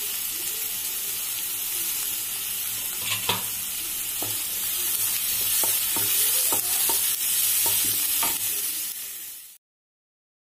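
Chopped onions sizzling steadily as they fry in ghee and oil in a kadhai, being taken towards golden brown. From about three seconds in, a spatula scrapes and knocks against the pan several times as they are stirred. The sound cuts off suddenly near the end.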